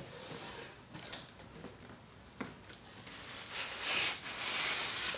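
Cardboard packaging being handled as a boxed electric grill is pulled out of its shipping carton: a few sharp knocks and rustles, then a louder sliding scrape of cardboard on cardboard for the last second and a half.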